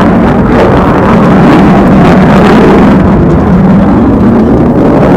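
Loud, steady roar that swells slightly in the middle.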